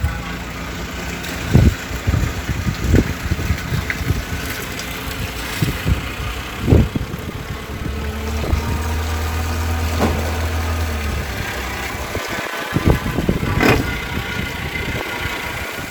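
Boat engine idling, with irregular knocks and thumps throughout. A stronger low hum comes in for a few seconds just past the middle.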